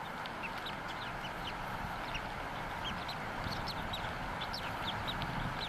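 Newly hatched bald eagle chick peeping: short high chirps, several a second, over a steady background hiss.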